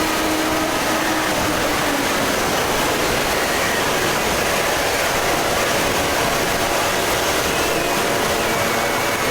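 Fan-made emergency alert (EAS-style) alarm sound: a loud, steady, harsh rushing noise with faint tones underneath that shift slowly in pitch.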